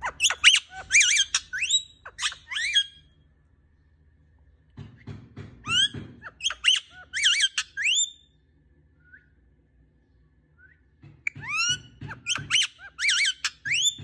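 Rose-ringed (Indian ringneck) parakeet giving three bursts of rapid, high-pitched squawks and chirps, each a few seconds long with quiet pauses between.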